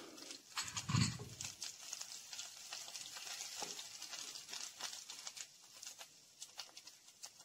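Ginger, curry leaves and mustard seeds frying in hot coconut oil in a pan: a faint sizzle with many small crackles, and a wooden spatula stirring. A short low sound about a second in.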